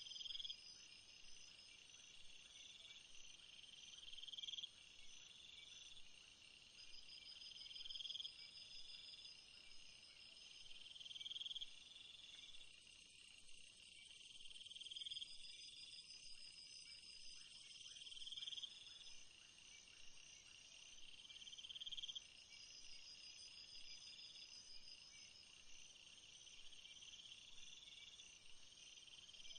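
Faint night-time jungle ambience: a steady high-pitched chorus of crickets and other insects, with one call that swells and then cuts off about every three and a half seconds over a higher pulsing trill.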